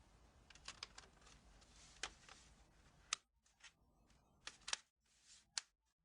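Faint, irregular clicks, about eight of them, each brief and sharp. The louder ones come about halfway through and near the end.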